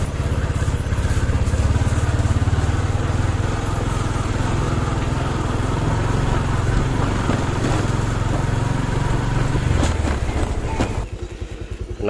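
Small motorcycle engine running at low speed as it rides along a rough alley, heard from the rider's position. The engine sound drops away about eleven seconds in.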